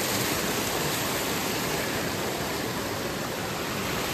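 Steady rushing of running water, an even noise that holds at the same level without a break.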